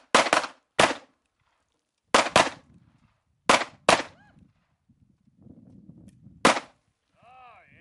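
Several handguns firing an irregular string of about eight sharp shots: a quick run of three, two close pairs, then a last single shot after a pause of a couple of seconds.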